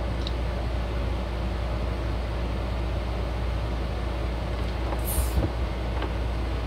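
Nesco vacuum sealer at the end of its cycle, running with a steady hum. About five seconds in comes a short hiss of air and a knock as the vacuum is let go and the lid is opened on a bag that has sealed properly.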